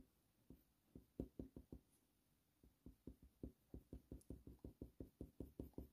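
Faber-Castell Polychromos colour pencil making short, quick back-and-forth strokes on heavy hot-press watercolour paper: a faint run of soft ticks, a cluster about a second in, then a steady pattern of about four strokes a second through the second half.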